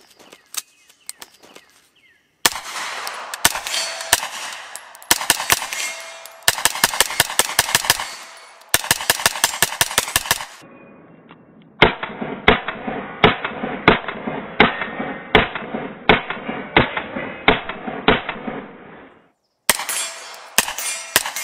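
Several rapid strings of 9mm shots from a JP GMR-15 pistol-caliber carbine fitted with a muzzle brake, fired in quick succession. In the second half a long run of shots sounds duller and muffled.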